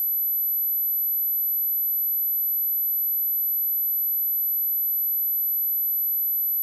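A single steady sine-wave test tone at 11,962 Hz, a pure high-pitched pitch held unchanging throughout, used as a speaker test and speaker-cleaning tone.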